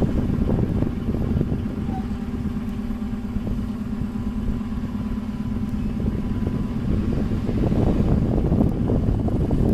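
Passenger train coaches rolling slowly along the track: a low rumble with a steady hum, growing louder and rougher about seven seconds in.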